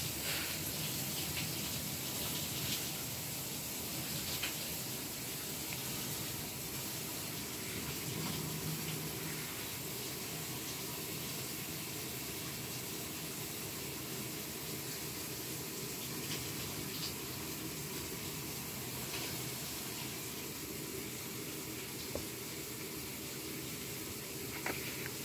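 A steady, even hiss throughout, with a few faint soft clicks.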